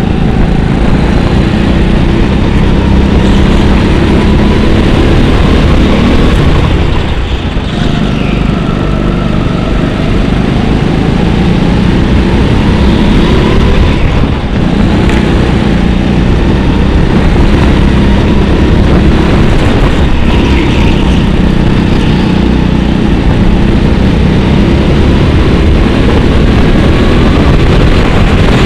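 Go-kart engine running hard, heard from a camera on the kart, its pitch rising and falling as it slows for corners and accelerates out. The sound dips briefly about seven seconds in and again about fourteen seconds in.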